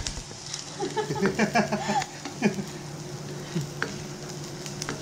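Chopped garlic and onion sizzling in hot oil in a nonstick frying pan, stirred with a plastic spatula that scrapes and taps against the pan now and then.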